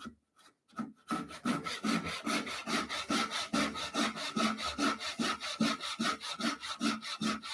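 Brass-backed backsaw cutting a tenon in wood clamped upright in a vise. After about a second of quiet while the saw is set on the line, there is a steady run of quick, even sawing strokes, about three to four a second.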